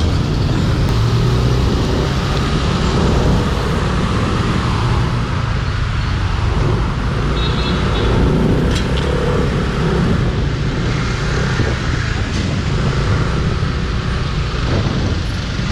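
Steady road noise from riding a motorcycle in traffic: wind rumbling on the microphone over the engine and surrounding vehicles.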